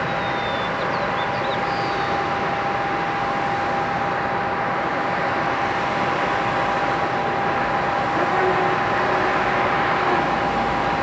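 Distant Boeing 757-200 jet engines running on the runway as the airliner lines up for takeoff: a steady rumble with a steady whine over it.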